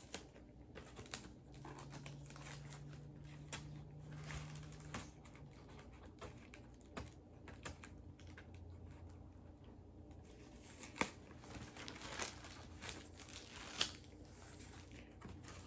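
Faint crinkling and scattered small clicks of adhesive tape being peeled off a plastic record sleeve, with a few sharper clicks in the second half.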